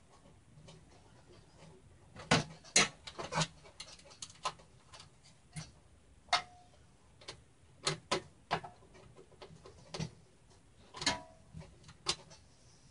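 Irregular clicks and light metallic taps as motherboard standoffs are screwed into a steel mini-ITX computer case, a couple of them ringing briefly.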